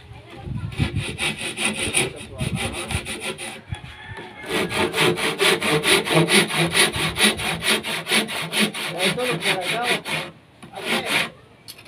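Handsaw cutting through a thin wooden strip held in a C-clamp, in fast, even back-and-forth strokes. The strokes pause briefly about four seconds in, run steadily again, and stop about ten seconds in, with one short last burst of strokes just after.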